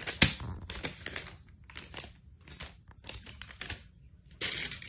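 Paper or wrapping crinkling and rustling in a monkey's hands, in irregular short bursts, with a sharp snap just after the start and a louder, longer rustle near the end. No harmonica is heard.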